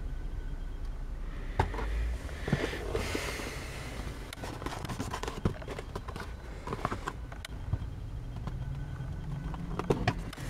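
Cardboard box being handled and turned over, with rustling and scattered clicks and knocks of the card and flaps, over a low steady rumble.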